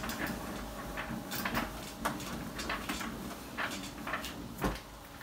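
Cloth wiping marker writing off a whiteboard: a run of quick rubbing swishes, stroke after stroke, with a soft knock near the end.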